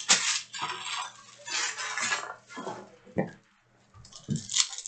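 Trading cards being handled: a run of short sliding, rustling and scraping sounds as cards are flicked through, with a brief pause about three and a half seconds in.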